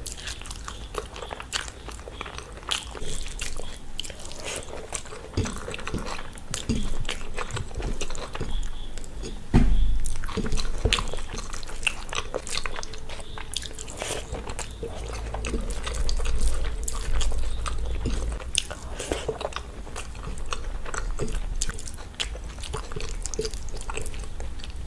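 Close-miked chewing and mouth sounds of a person eating rice and chickpea curry by hand, with many small wet clicks.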